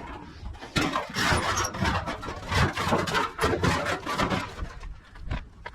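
Scrap metal clattering and scraping as pieces are handled and loaded, with many irregular knocks.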